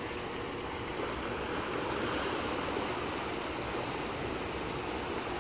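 Turbulent river water rushing and churning in the tailwater below a hydroelectric dam, stirred into swirling boils by water released through the turbines; a steady rush with no let-up.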